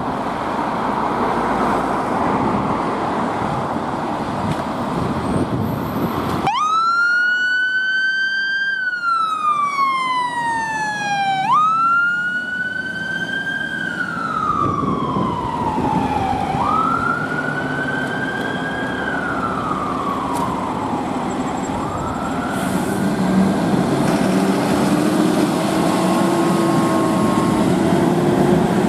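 Fire engine running with road noise. About six seconds in, a fire engine's siren starts a slow wail, rising quickly and falling off in cycles of about five seconds, as the engine turns out on an emergency call. Later the wail grows fainter and overlaps with a second, quieter siren.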